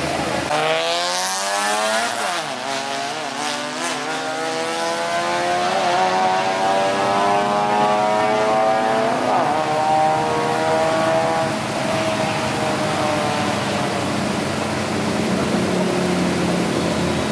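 A drag-race car accelerating hard down the strip. The engine revs climb, dip and climb again at three gear changes, then its pitch sinks as it lifts off and slows.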